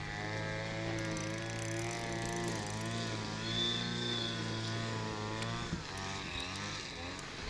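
A steady engine-like drone whose pitch wavers slowly, weakening about six seconds in.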